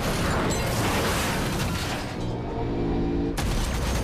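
Action-film sound mix: a fiery crash and explosion over orchestral score, with held low chords coming through after about two seconds and a sudden boom near the end.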